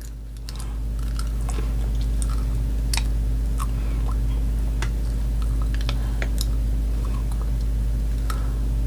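Plastic novelty vampire fangs being fitted over the teeth: irregular small clicks and mouth sounds scattered throughout, over a steady low hum.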